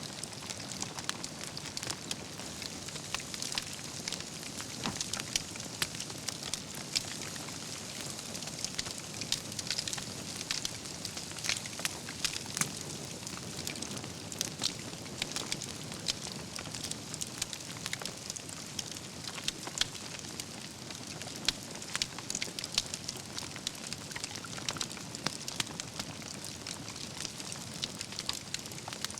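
Wood campfire burning, with a steady low rush of flames and frequent sharp crackles and pops from the logs.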